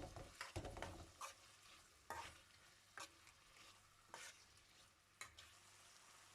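Spoon stirring and scraping chicken pieces through masala in a frying pan, about one stroke a second, over a faint sizzle.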